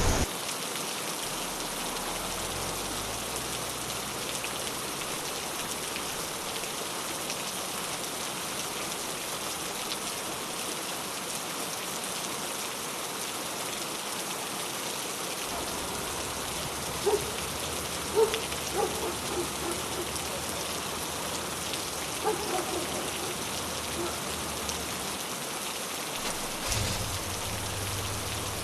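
Steady rain falling on a wet city street, an even hiss. A low rumble comes in about halfway and grows near the end, and a few short faint sounds stand out in the middle.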